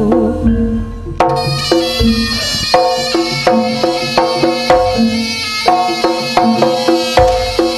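Javanese jaranan gamelan accompaniment playing an instrumental passage: pitched percussion struck in a quick, even rhythm of about three strokes a second over deep drum and gong thumps.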